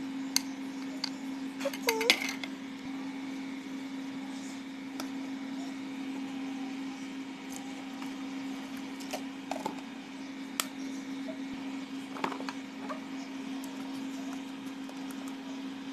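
Dishes and utensils being handled: a few scattered clinks and knocks of glass and crockery, the loudest cluster about two seconds in, over a steady low hum.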